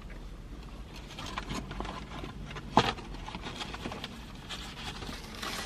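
Crinkling and rustling of a paper bag of potato chips being handled, with scattered small clicks and one sharp click a little under three seconds in, over a low steady hum.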